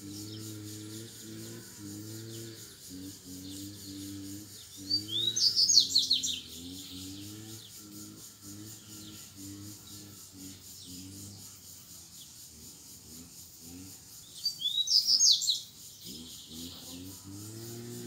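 Wild double-collared seedeater (coleiro) singing two short phrases of rapid, high, chattering notes, each about a second and a half long and about nine seconds apart. Underneath runs a low droning hum whose pitch wavers.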